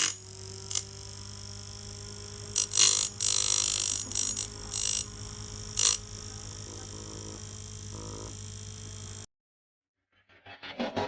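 Small DIY grinder built from a CPU fan, its motor humming steadily, with several short bursts of harsh, high grinding or scraping. The sound cuts off abruptly about nine seconds in, followed by a few faint clicks.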